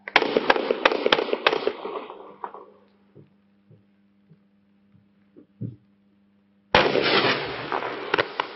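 Weco 'Frequenzy' quiet (Silent Line) firework battery firing. A dense burst of crackling with sharp pops fades over about two seconds, a few soft thumps of shots leaving the tubes follow, and a second crackling burst breaks out about seven seconds in.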